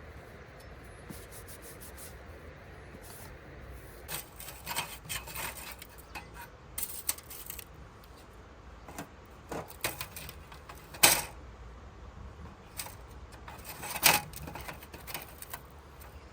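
Objects being handled: irregular clicks, light knocks and rubbing, with two sharper knocks about eleven and fourteen seconds in.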